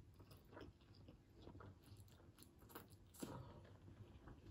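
Faint chewing of a mouthful of spicy Buldak instant noodles, with a few soft mouth clicks, one a little louder about three seconds in.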